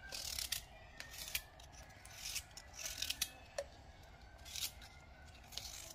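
Kitchen knife slicing through raw vegetables held in the hand: a series of faint, irregular crisp cuts.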